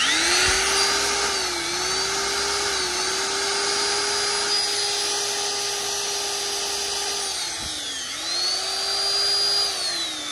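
Hitachi 310 W corded electric drill running: the motor starts abruptly and whines steadily, its pitch dipping and coming back up several times as the variable-speed trigger is eased and squeezed, with a longer dip about eight seconds in.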